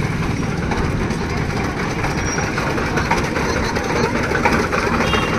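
An engine running steadily close by, over the general noise of a busy street market.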